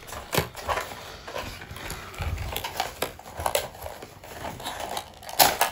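Cardboard and plastic blister packaging being handled and pulled apart by hand: irregular rustling and crinkling with small clicks, loudest in a short burst near the end.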